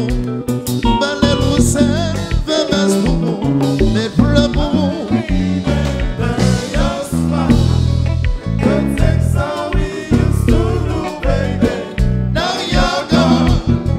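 Live konpa band music: a lead vocalist singing over electric guitar, bass and a steady beat.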